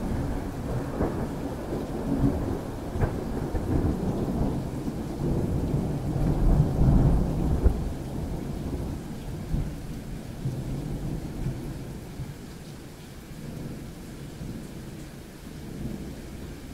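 Thunder rolling and rumbling, with a few sharp cracks. It is loudest about seven seconds in, then dies away, leaving steady rain.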